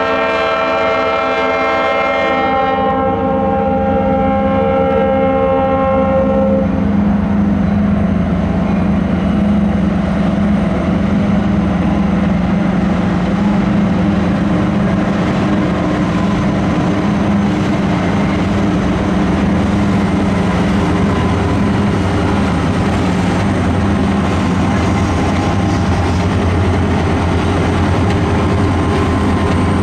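Diesel locomotive air horn sounding a long multi-note chord that cuts off about six seconds in, followed by the steady running of the diesel locomotives and the train rolling past on the rails.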